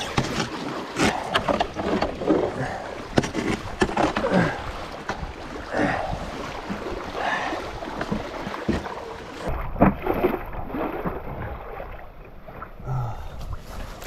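Canoe paddle strokes splashing through choppy, wind-driven lake water, about one stroke a second, with waves lapping against the hull.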